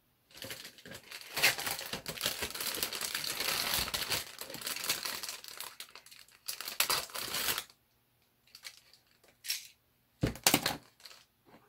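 Clear plastic bag of model-kit parts crinkling as it is handled and cut open with a utility knife, a dense crackle lasting about seven seconds. A few sharp clicks follow near the end.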